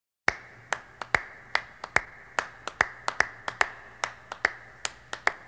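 Scattered, uneven hand claps from a few people, about two or three sharp claps a second, each ringing briefly in a hall, over a faint steady hum.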